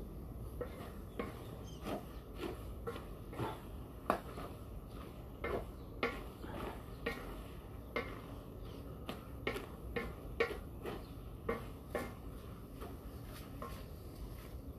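Wooden spatula stirring and scraping minced bopis in a large aluminium wok, knocking against the pan in irregular strokes about twice a second, over a steady low rumble.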